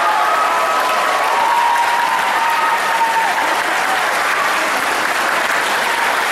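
Audience applauding, with a few long cheering voices over the clapping in the first three seconds.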